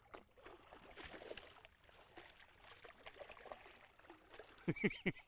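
Water splashing and gurgling as a hooked bass thrashes at the surface, with a quick flurry of sharper splashes near the end.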